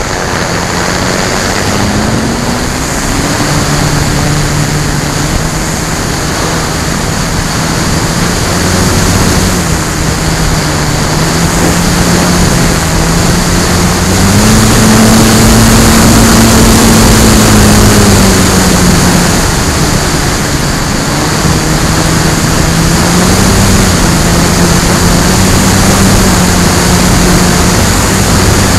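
Onboard sound of a radio-controlled FMS Bf-109 warbird in flight: its electric motor and propeller hum, rising and falling in pitch with the throttle, under heavy wind rush on the microphone. The pitch climbs highest and loudest about halfway through, then drops back.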